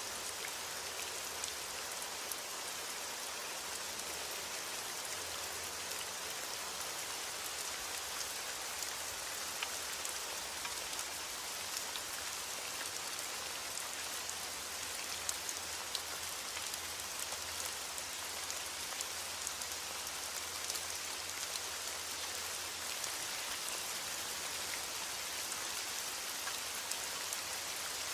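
Heavy rain falling on a window glass, a steady dense hiss with many small sharp ticks scattered through it.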